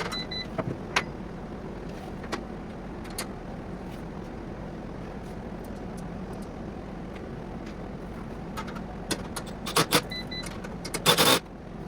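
Onefinity Elite Foreman CNC router running on its bench, its motors whirring steadily with scattered clicks and knocks, and a louder clatter shortly before the end.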